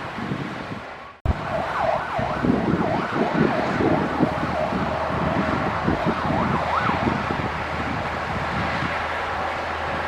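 Diesel engine of heavy earthmoving machinery running steadily. It cuts out abruptly about a second in and comes straight back. For several seconds after that, a wavering high-pitched wail rises and falls over the engine.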